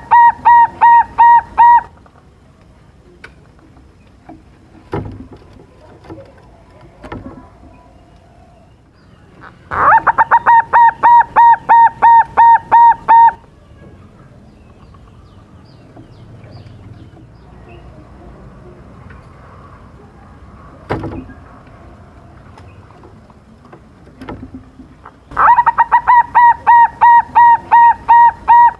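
Young silver zebra dove (perkutut) singing its staccato cooing song in three bouts, each a quick run of about a dozen short notes, some four a second, lasting around three seconds: one ending about two seconds in, one about ten seconds in, and one starting about 25 seconds in. A few short sharp knocks fall in the gaps between bouts.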